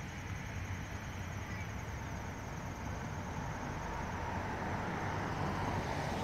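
Steady low outdoor background rumble with no distinct events, slowly growing a little louder.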